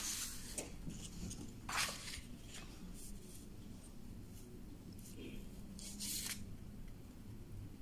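Faint rustling of paper sheets being handled and shifted, with a few brief swishes over a low steady hum.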